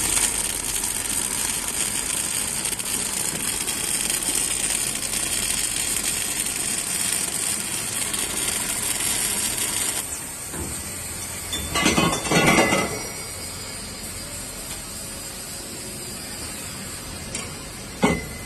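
Automatic prop welding machine arc-welding: a steady hiss for about ten seconds that stops abruptly, then a short louder burst of noise about two seconds later and a few sharp knocks near the end.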